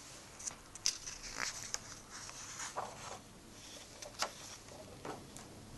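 Paper rustling and scraping as a hand handles a comic book's glossy cover on a wooden table and starts to lift it, with a few sharp taps or clicks, one about a second in and another about four seconds in.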